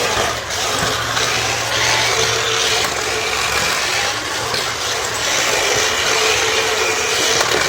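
Small electric motors of remote-control toy bumper cars whirring steadily as the cars drive around, with a faint steady whine.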